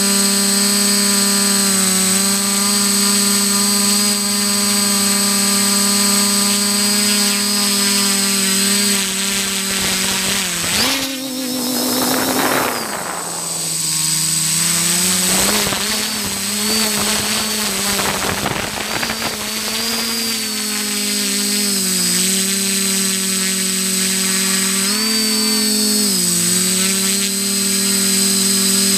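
XJ470 multirotor drone's electric motors and propellers whining steadily, heard close up through the onboard camera. The pitch jumps up about eleven seconds in and then falls away through a rushing stretch, and it steps up briefly again near the end as the throttle changes.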